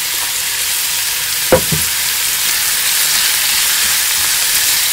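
Chopped onion and seafood sizzling in a frying pan, stirred with a silicone spatula; one sharp knock about a second and a half in.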